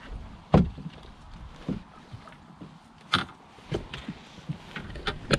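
Irregular knocks and bumps of handling in a small fishing boat, about half a dozen sharp strikes spread over a few seconds, the loudest about half a second in and again about three seconds in.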